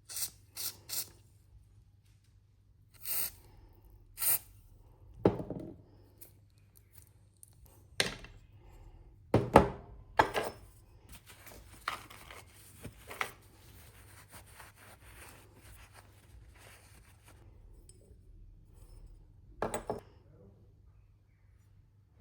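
Hand work on a disassembled angle grinder's parts: scattered clicks, knocks and short scrapes of metal and plastic pieces being handled and set down, with the loudest knocks about nine seconds in. The grinder is not running.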